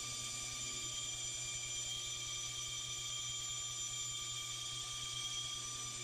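Bandsaw running with a steady hum and a high whine while it cuts through a thick wooden board.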